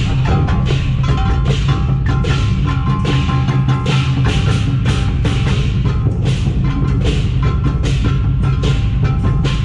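Temple-procession percussion band playing: a large barrel drum on a wheeled cart beaten in a steady even rhythm, with ringing metal hand percussion striking about three to four times a second over it.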